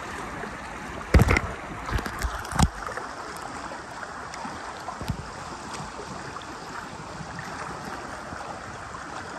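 River water rushing and splashing around inflatable river tubes running a shallow rapid, a steady wash of noise. A few dull thumps come in the first few seconds, the loudest about a second in.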